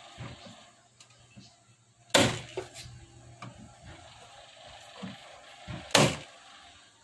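Corded electric nail gun firing twice, about four seconds apart, each shot a sharp bang, as a drawer front is nailed onto a cabinet. Faint taps and clicks of handling come between the shots.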